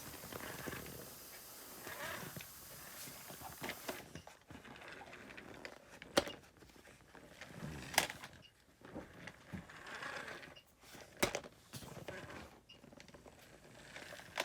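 Handling noise from toys being played with: three sharp clicks or knocks spread through, with faint rustling in between.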